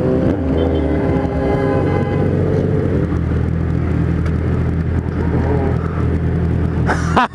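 Motorcycle engine, a Kawasaki Z1000 inline-four with a 4-into-1 exhaust, running steadily while riding, with other motorcycles close by. Near the end the throttle is blipped, the pitch rising sharply.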